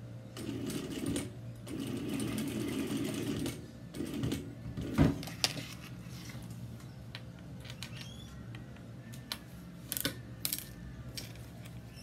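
Sewing machine stitching in two short runs near the start, the second about two seconds long, over a steady low hum. Scattered sharp clicks and knocks follow as the work is handled at the machine.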